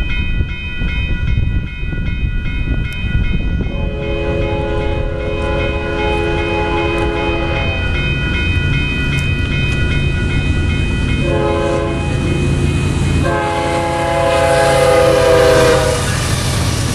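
Union Pacific freight locomotive sounding its multi-chime air horn for a grade crossing: a long blast about four seconds in, a short one about eleven seconds in, then another long one. The crossing bell rings steadily throughout, over the locomotive's low engine and wheel rumble, which grows as the train reaches the crossing.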